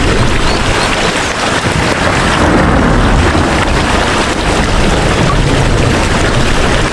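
Steady heavy rain: a dense, even hiss with a strong low rumble underneath.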